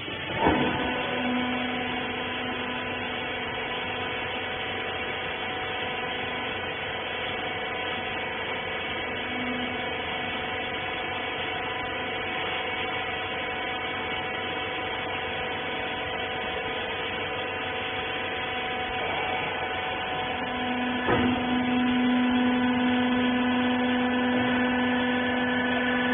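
Rag baler machine running: a steady motor hum with a constant whine. It starts with a click about half a second in, and gets louder after a knock about three-quarters of the way through.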